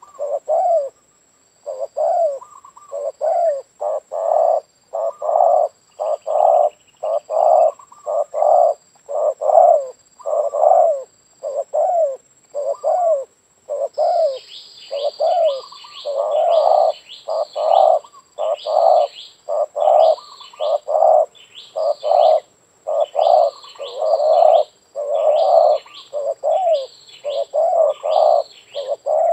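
Spotted doves cooing, a steady run of repeated short coos about one or two a second. From about halfway a series of high, falling chirps from another bird sounds alongside each coo.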